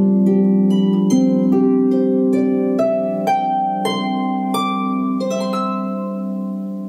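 Instrumental music: a slow run of plucked-string notes over held low chords. The plucked notes stop about five and a half seconds in and the music fades.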